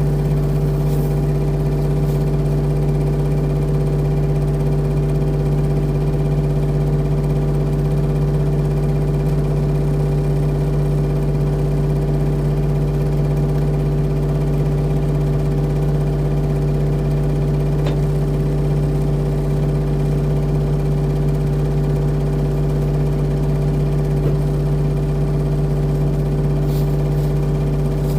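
Diesel engine of a compact earthmoving machine running at a steady speed, a constant drone with no revving.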